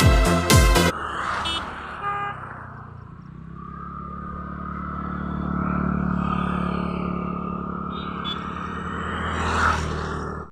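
Electronic music with a steady beat cuts off about a second in, followed by the steady low hum of a motor vehicle's engine that swells and fades, rising again near the end.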